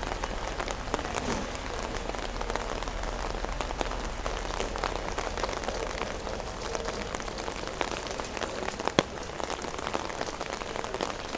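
Heavy rain falling steadily, with many separate drops ticking close by, as on an open umbrella overhead. One sharper tap about nine seconds in.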